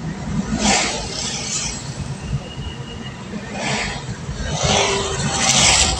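Road noise while riding a motorcycle in traffic: a steady low rumble, with vehicles whooshing past about a second in, near four seconds, and again in a longer rush near the end.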